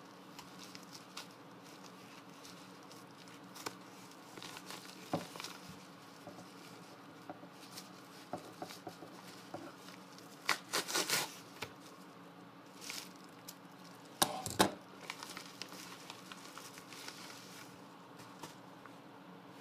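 A mailed package being opened by hand: scattered taps, rustles and crinkling of packaging, with short tearing and crinkling bursts about halfway through and again a few seconds later. A faint steady hum sits underneath.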